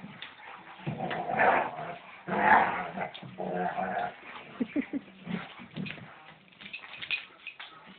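Two German Shepherds play-fighting: a run of loud, rough growling and snarling in the first half, then a few short, high, rising whimpers and lighter scuffling sounds.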